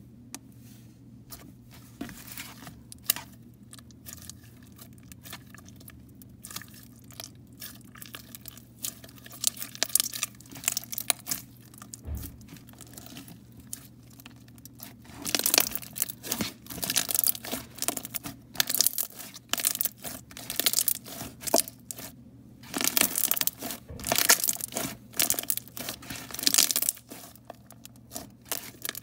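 Hands pressing, stretching and squishing a thick pastel-pink slime, giving sticky crackles and small pops. Scattered clicks at first, then dense runs of crackling in the second half.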